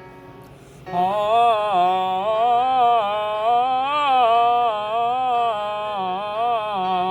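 A singer's voice holding a sustained "ah" vowel in a three-tone vocal exercise. It starts about a second in and steps up and down between a few notes without a break.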